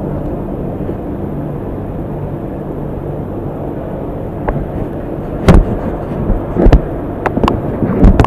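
Car engine idling with a steady low hum, while sharp clicks and knocks come in the second half as the AC manifold gauge set and its valves are handled.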